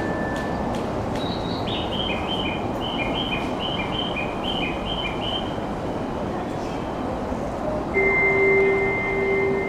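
Station platform ambience with a steady crowd murmur. About a second in comes a run of short two-note chirps, repeating for several seconds. Near the end, held chime tones of a station melody begin.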